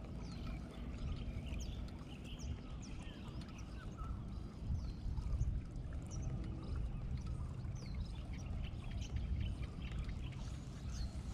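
Small birds chirping, with short high calls that sweep downward, scattered every second or so over a steady low rumble of outdoor background noise.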